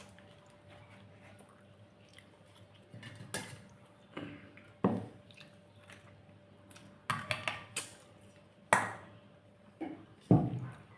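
Person eating a rice and curry meal: soft chewing with about eight sharp clinks and knocks of tableware against the plate, the loudest near the end.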